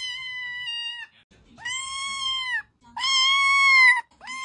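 Tabby kitten meowing over and over: four long, high, even-pitched meows of about a second each, with short pauses between.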